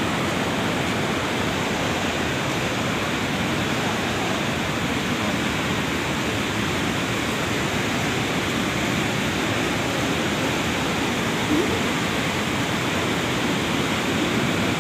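Fast mountain river rushing over rocks: a steady, unbroken noise of white water.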